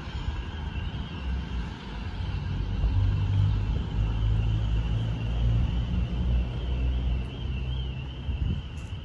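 A low rumble that swells about three seconds in and eases toward the end, with a faint wavering high whine running through it.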